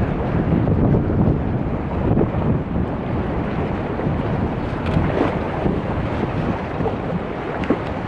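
Strong gusting wind buffeting the microphone over choppy sea water, a loud, rough noise that rises and falls with the gusts.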